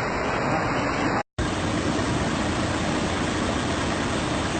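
Steady rush of heavy rain and floodwater. About a second in it cuts out for a moment and comes back brighter and hissier.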